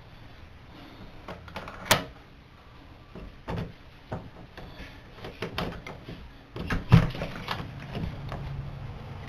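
A door being handled, with scattered clicks and knocks: a sharp click about two seconds in and the loudest thump about seven seconds in. A steady low hum starts near the end.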